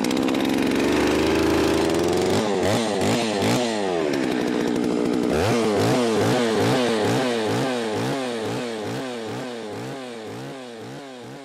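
Perla Barb 91.6cc two-stroke chainsaw firing on a pull of the starter cord from a cold start and running at fast idle. After a couple of seconds its speed starts surging up and down, about twice a second, as it warms up; the sound fades toward the end.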